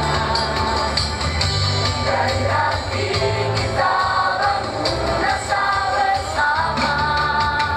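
Choir singing in harmony over accompaniment with a bass line and a steady beat.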